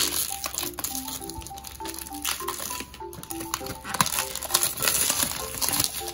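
Clear plastic shrink wrap crackling and crinkling as it is peeled off a boxed tablet, with many small crackles. Piano music plays underneath.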